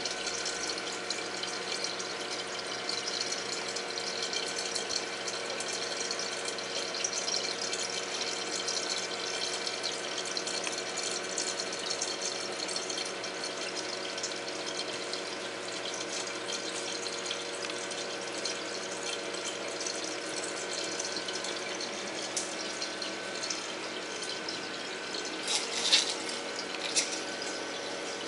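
Reef aquarium's running water: steady splashing and trickling from the tank's circulation, with a steady hum under it. Two short, sharp clicks near the end.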